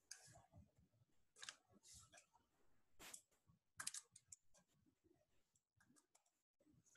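Near silence broken by a few faint, short clicks and soft rustles, most of them in the first four seconds.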